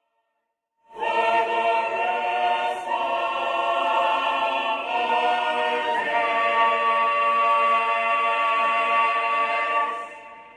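A choir singing sustained a cappella chords. It starts about a second in, changes chord a few times with a high note held over the later part, and fades out near the end.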